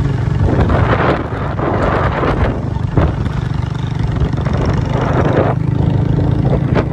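An engine running steadily, with gusty noise washing over it.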